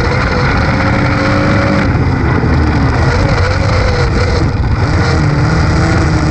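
Dirt-track race car's engine at racing speed, heard from inside the cockpit. Its pitch rises and falls as the throttle is worked, with a brief dip about four and a half seconds in, over steady wind and tyre noise.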